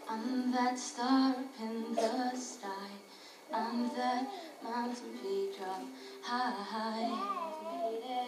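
A teenage girl sings a slow pop ballad into a microphone, with long wavering held notes and vocal runs, over a strummed acoustic guitar accompaniment.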